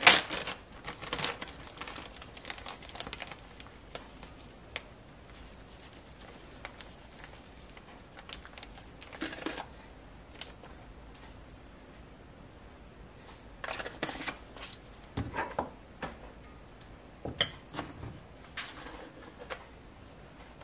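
Plastic zip-top bag crinkling loudly at the start as breading is poured out of it, followed by scattered clicks and taps of spice shaker jars and a fork stirring the dry breading in a ceramic bowl.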